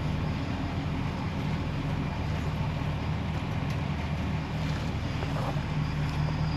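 Vehicle engine running steadily, a low, even hum with a little wind noise.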